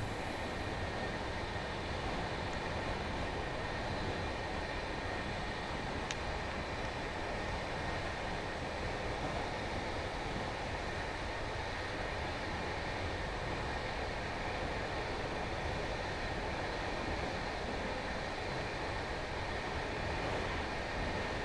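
Passenger train running at speed, heard from inside the carriage: a steady rolling rumble and rush of the wheels on the track, with a faint steady high whine.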